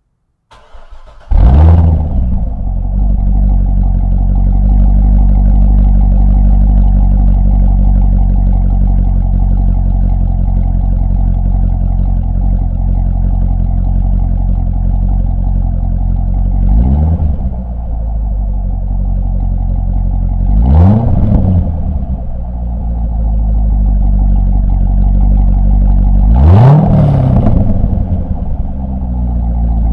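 2012 Corvette Grand Sport's 6.2-litre LS3 V8, heard through a microphone at the exhaust with the stock NPP exhaust valve open: the starter cranks briefly, the engine catches with a loud flare of revs, then idles steadily. There are three short throttle blips later on, the last one revving highest.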